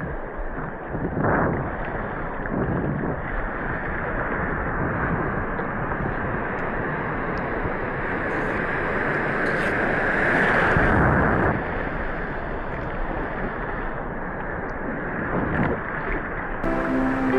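Ocean surf washing steadily, with wind buffeting the microphone; a bigger wave surge swells and falls away in the middle. Music comes in near the end.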